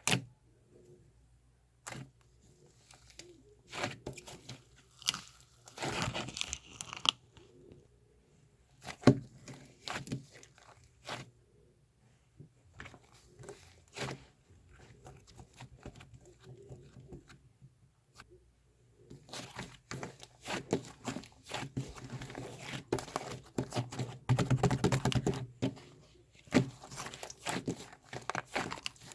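Irregular sharp clicks and crinkly rustling, coming in scattered bursts, with busier stretches about six seconds in and again from about nineteen to twenty-seven seconds in.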